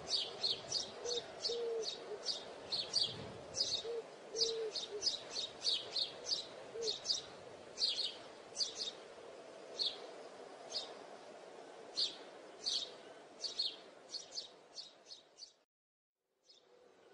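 Small birds chirping, short high chirps in quick succession, over a faint steady low hum with a few short low notes in the first five seconds. The chirping stops abruptly about a second and a half before the end.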